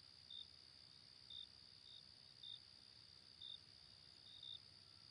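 Faint cricket chirping: short high chirps about once a second over a steady high-pitched hum.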